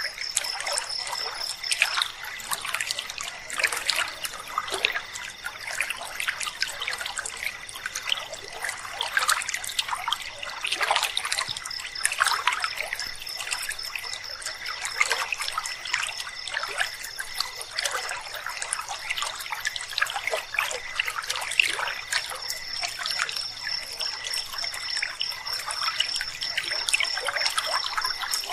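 River water trickling and babbling over stones. A high, rapidly pulsing trill of night insects sits above it; the trill stops about two seconds in and comes back about halfway through.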